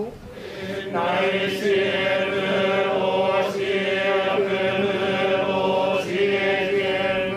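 A group of Buddhist monks chanting a Tonaekotoba invocation in unison, on long held notes. The chant breaks off at the start and resumes about a second in.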